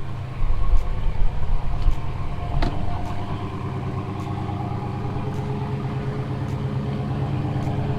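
A car engine running, louder and uneven for the first couple of seconds, then idling steadily.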